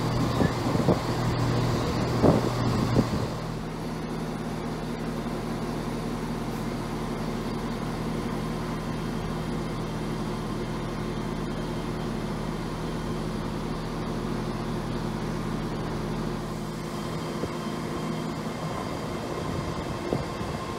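For the first three seconds a ScotRail Class 170 Turbostar diesel multiple unit runs along the platform close by, with a low engine drone and a few knocks. Then the sound changes abruptly to the steady, even hum of a ScotRail Class 385 electric multiple unit standing at a platform across the tracks.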